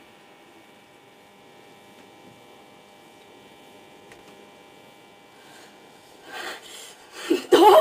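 Faint steady hum and hiss of an old film soundtrack, with a few thin steady tones. Near the end a person's voice breaks in with short, loud, uneven vocal sounds.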